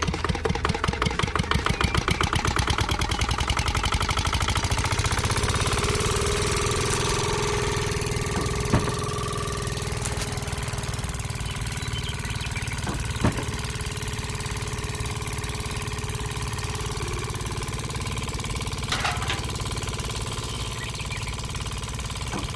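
Small engine running: a fast, even chugging for the first few seconds, then a steadier run, with a few sharp knocks or clanks along the way.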